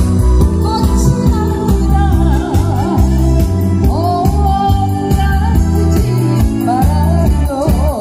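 A singer performing over backing music with a steady beat, holding one long note with vibrato about halfway through.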